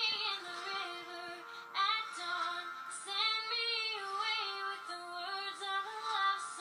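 Female voice singing a melody in held notes that step up and down, in short phrases, with music behind it.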